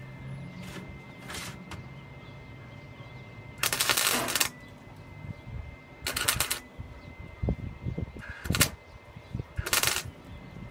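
Arc of a small gasless flux-core MIG 130 wire welder crackling in short bursts of half a second to a second, about six in all, the longest about four seconds in.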